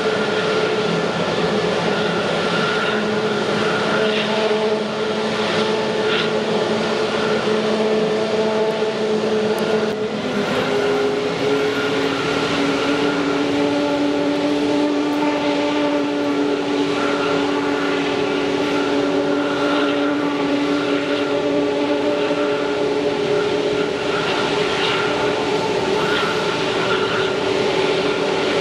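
Airbus A321's turbofan engines running at low power, a steady rushing whine with several held tones. About a third of the way in, the tones shift and the lower hum rises a little in pitch, then stays steady.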